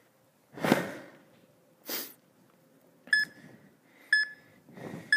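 An interval timer counting down the last seconds of a rest period: three short electronic beeps about a second apart in the second half. Before them, two heavy breaths from the exerciser, close on his headset microphone.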